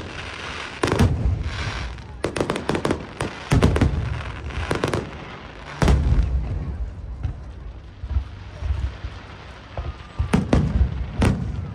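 Aerial fireworks bursting in rapid volleys: sharp bangs and deep rumbling booms with crackle, then a short lull past the middle before another cluster of bangs near the end.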